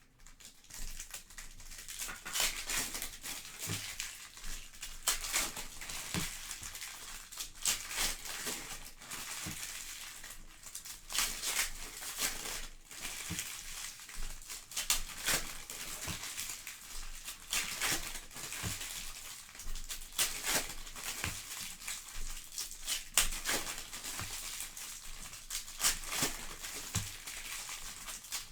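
Trading card pack wrappers crinkling and tearing as packs are opened by hand, an irregular run of crackles and rustles.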